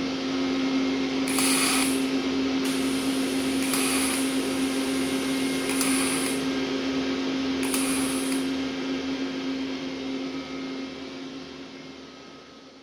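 Automatic TIG seam welder running a weld: a steady hum over an arc hiss, with a brief sharper high hiss about every two seconds. The sound dies away near the end.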